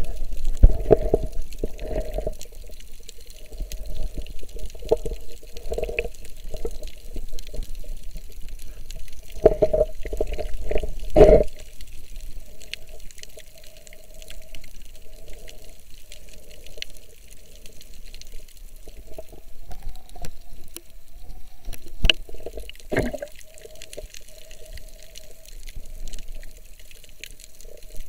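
Muffled underwater water noise picked up by a submerged camera, a dull steady wash of sound with louder gurgling swishes now and then: a few near the start, a cluster about ten seconds in, and one more a little after twenty seconds.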